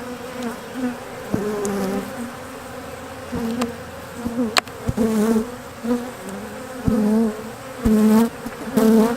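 Honeybees buzzing around an opened hive, single bees swelling loud and fading as they fly close past the microphone. The colony is disturbed by the lid coming off. A few short, sharp knocks and clicks come through the buzzing.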